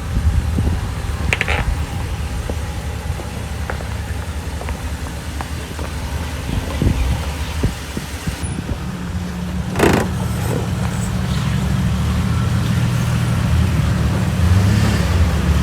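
Off-road 4x4's engine running low and steady as it crawls along a rough trail, with a single sharp knock about ten seconds in. The engine note rises a little near the end.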